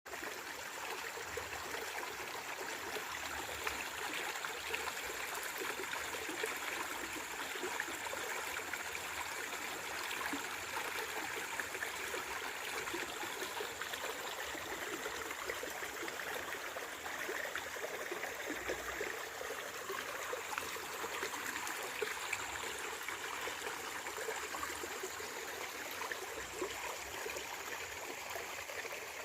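A stream of water running steadily, an even, unbroken flow.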